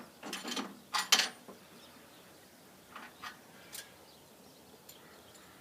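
Metal scaffold parts knocking and clinking as they are handled while the scaffold is taken down. A cluster of clanks comes in the first second and a half, the loudest just after a second in, then a few faint knocks.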